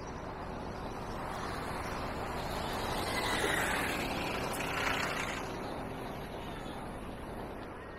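Street traffic: a motor vehicle passes close by, its noise swelling to a peak about halfway through and then fading away.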